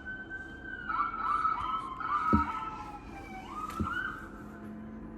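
Emergency vehicle sirens wailing, several overlapping, their pitch gliding up and down. Two short low thumps are heard midway.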